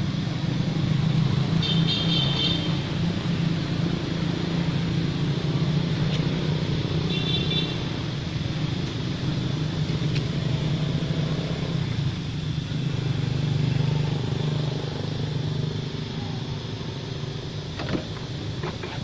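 A steady low rumble like a running engine, with two short high-pitched squeaks about two seconds and seven seconds in.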